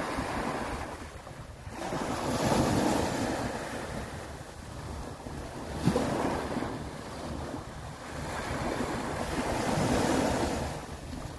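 Sea waves breaking and washing up a beach, the surf swelling and easing off in slow surges, with wind buffeting the microphone. A brief sharp snap about halfway through.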